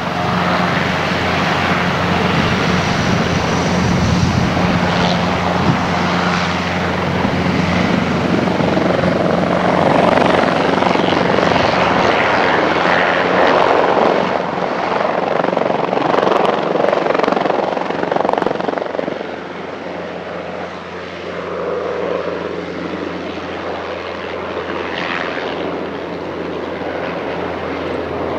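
Military helicopter's rotor and turbine engine running loud and steady, with a low hum under dense noise; the level drops somewhat about two-thirds of the way through.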